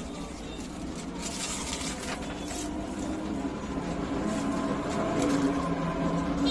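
Street background noise with passing vehicles, a steady mixed hum with faint held engine tones, and a few short crackles between one and three seconds in.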